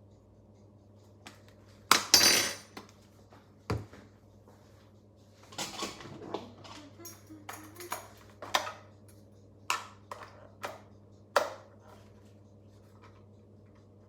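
Kitchen utensils and dishes clattering: a spoon clinking against a mixing bowl and things being set down on the counter, in a string of sharp knocks and clinks, loudest about two seconds in, over a steady low hum.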